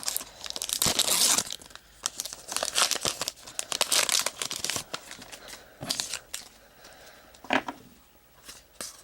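Trading card pack wrapper being torn open and crinkled by hand, with dense crackling for the first five seconds, then quieter rustles and a few short handling sounds.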